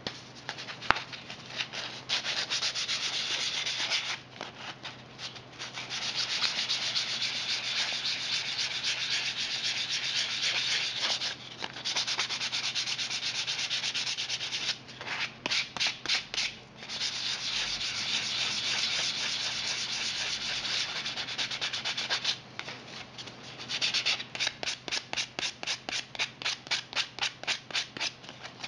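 Sandpaper rubbed by hand over the iron-paint base coat of a 3D-printed plastic part, sanding it back. It is a steady scratchy hiss in long stretches, with runs of quick back-and-forth strokes, about four a second, in the middle and near the end.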